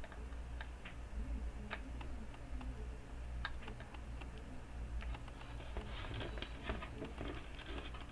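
Small scattered clicks and taps of a soldering iron tip working a capacitor's solder joint on a monitor power board, growing into a denser flurry of clicks and handling noise near the end as the board is moved; the solder is not melting, which the repairer puts down to the iron not being hot enough yet. A steady low hum runs underneath.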